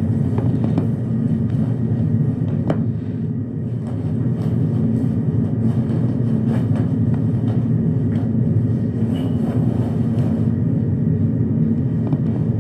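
A steady low rumbling hum with a few faint clicks over it.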